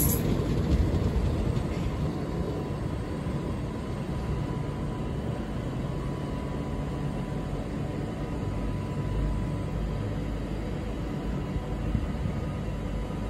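Class 170 Turbostar diesel multiple units pulling away and receding, loudest in the first couple of seconds. After that comes a steady low rumble with a faint steady whine.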